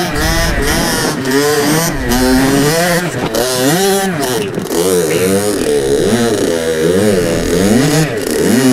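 Two-stroke dirt bike engine revved hard in first gear, its pitch rising and falling over and over as the throttle is blipped and the clutch popped to claw over rocks. A few short knocks come through along with it.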